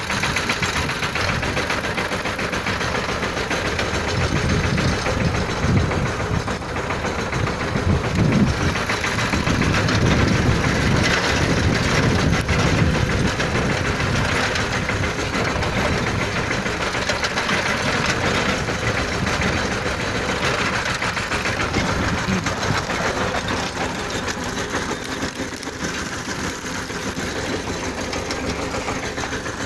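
A vehicle engine running steadily under the work of ploughing, a little louder for several seconds in the first half.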